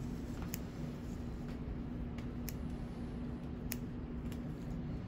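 Steady low hum with about four faint, sharp clicks of surgical scissors and forceps working in the wound as a lipoma is dissected free of its adhesions.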